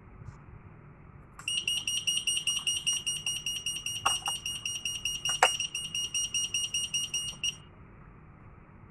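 Fire alarm sounding during a fire-signal test: a high-pitched tone pulsing rapidly, about six beats a second. It starts about a second and a half in and stops suddenly near the end, with a couple of sharp clicks partway through.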